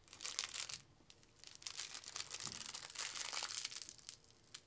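Clear plastic wrapper crinkling as it is handled, in two stretches of sharp rustling, the second longer.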